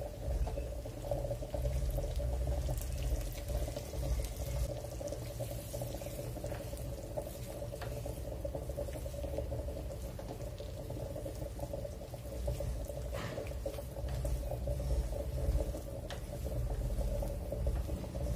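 Gram flour roasting in ghee in a steel pan, bubbling steadily while a spatula stirs and scrapes through it, with a few light clicks of the spatula against the pan over a low rumble.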